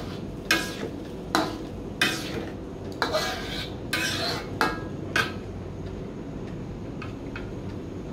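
Metal spatula scraping and stirring a thick chilli-tomato sambal in a wok, about seven strokes over the first five seconds, then only a faint tick or two.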